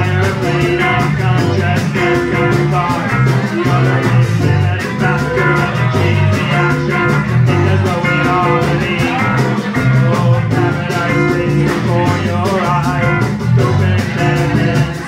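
A live band playing a rock song: acoustic guitar and drum kit, with cymbals keeping a steady beat.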